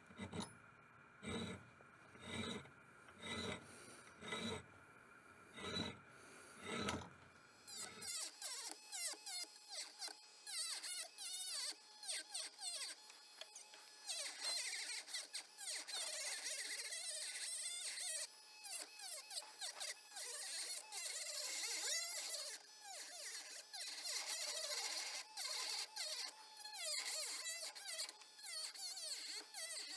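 A round file rasping across a brass knife guard held in a bench vise, about one stroke a second for the first eight seconds. Then a rotary tool with a small sanding drum grinds the brass: a high whine that wavers in pitch, starting and stopping as it bites and lifts off.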